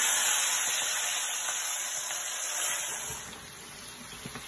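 Marinated chicken pieces frying in hot oil: a loud sizzle that eases to a quieter, steady sizzle a little past three seconds in.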